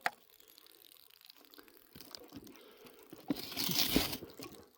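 Aluminium beer cans being handled in their cardboard carton: faint scattered rustles and taps, then a louder crinkling, tearing scrape lasting about a second near the end.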